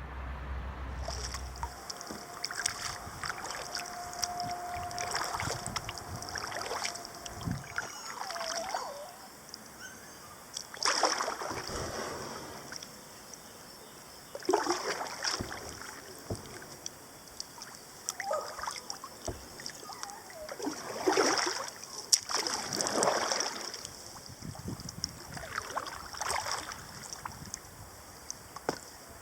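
Kayak paddle strokes in the water: a splashing swish every two to four seconds.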